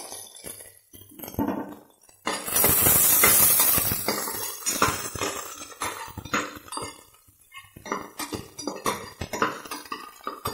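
A steel spoon stirs onions frying in oil in an aluminium pressure cooker, with repeated clinks and scrapes against the pot. A loud sizzling hiss from the hot oil swells about two seconds in and fades after a couple of seconds.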